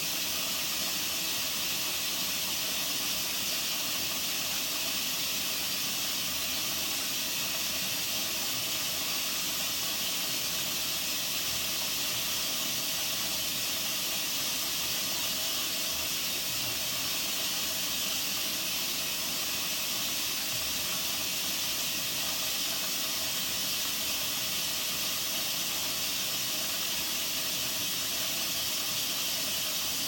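Bendix 7128 washing machine running a synthetics 60 wash, giving a steady, even hiss that does not change or break.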